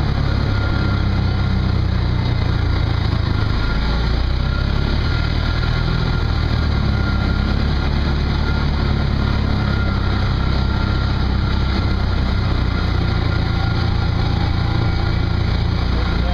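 Small engine of an off-road vehicle running steadily at low, even speed while riding along a dirt trail.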